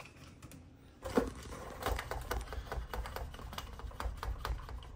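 Rapid, irregular clicking from a suction-cup seam setter being worked on a granite countertop seam, starting about a second in, with soft low knocks mixed in.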